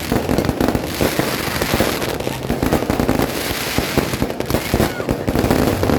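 Fireworks going off in a dense, continuous crackle of rapid bangs.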